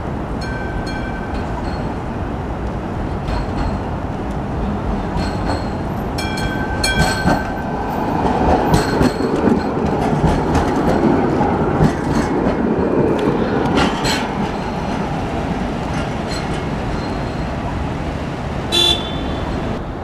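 Sydney light rail tram running in on street track and passing close by, its running noise swelling and then easing off. A short horn-like warning tone sounds twice as it approaches.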